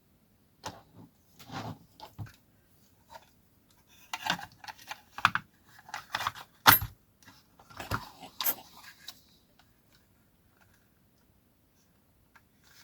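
A series of light clicks, taps and rattles of small parts and tools being handled on a workbench, busiest in the middle and stopping about three-quarters of the way through.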